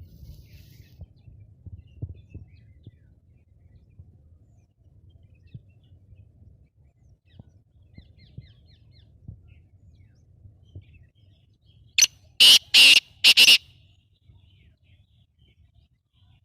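Black francolin (kala teetar) calling: a loud, harsh call of four rapid notes about twelve seconds in, over a low background rumble.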